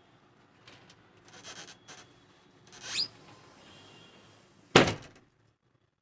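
Scattered knocks and rustles of objects being handled close to the microphone, a short rising scrape about three seconds in, and a loud thump near the end.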